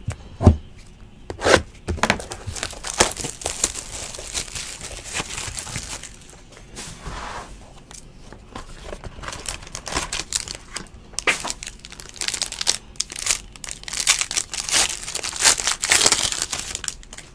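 Plastic shrink wrap being torn off a trading-card box, then a foil card pack being ripped open: crinkling and crackling plastic and foil, busiest near the end. There are two sharp clicks about half a second and a second and a half in.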